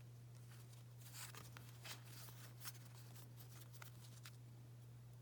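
Faint rustling and light ticks of trading cards being handled and slid against each other, over a steady low hum.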